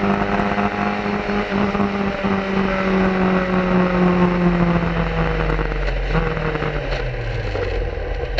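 1990 Swift SE3-B single-seater racing car's engine heard onboard, holding a steady high-revving note, then the revs falling gradually and stepping down over the last few seconds as the car slows.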